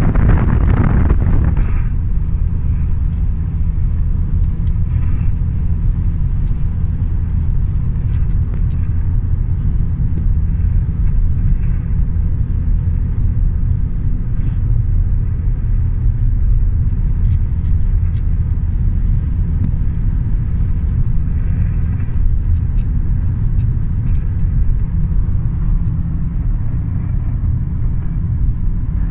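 Steady low rumble of a car driving, with a gust of wind noise on the microphone in the first second or two.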